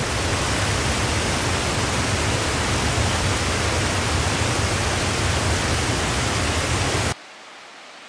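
Waterfall water rushing steadily over rock, a loud, even roar with a deep rumble; it cuts off suddenly about seven seconds in, leaving only a faint hush.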